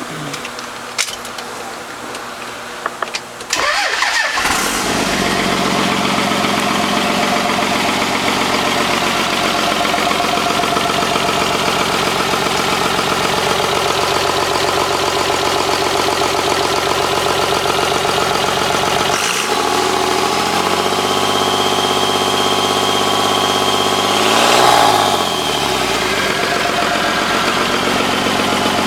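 Cummins diesel engine in a Ford being started and then running at a steady idle, with a brief rev that rises and falls about three-quarters of the way through. The owner posts it because of a strange noise in the engine, not identified.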